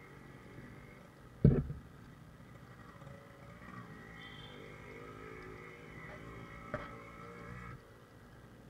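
Yamaha RX100 two-stroke single-cylinder motorcycle engine running at low speed, heard from the rider's seat, with a loud low thump about a second and a half in and a smaller sharp knock near seven seconds. The engine sound drops away abruptly near the end as the bike slows.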